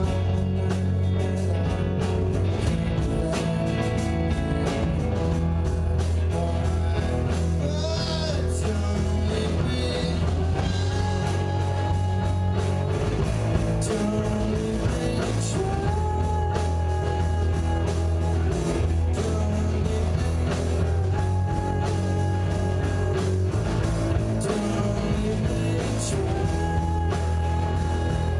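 Live rock band playing loudly: electric guitars over a drum kit beating steadily, with long held notes coming back every few seconds.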